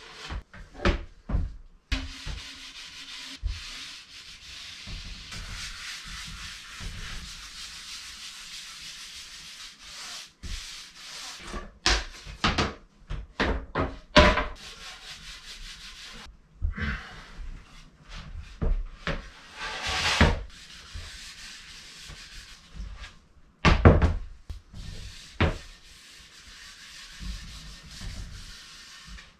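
A rag rubbing tung oil into mahogany and plywood panels by hand, a steady scrubbing noise, broken by sharp knocks and clatters as the wooden pieces are moved and set down on the table.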